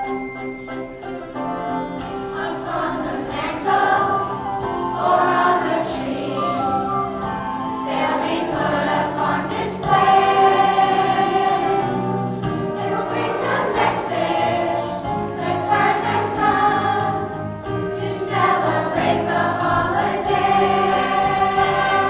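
Children's choir singing a song together with instrumental accompaniment, the sound filling out about two seconds in.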